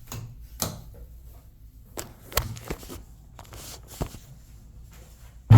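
A few light knocks and clicks spaced irregularly, then one loud thump near the end.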